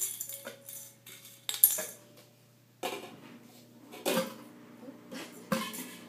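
Empty aluminium soda cans and plastic cups clattering and clinking as they are handled and stacked into a tower, a series of separate knocks with the loudest about a second and a half in.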